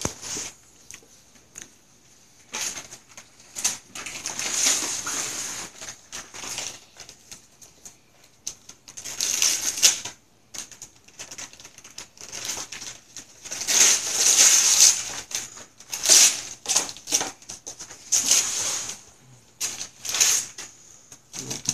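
Gift wrapping paper being torn and rustled off a present by hand, in repeated ripping, crackling bursts a second or two long with short pauses between.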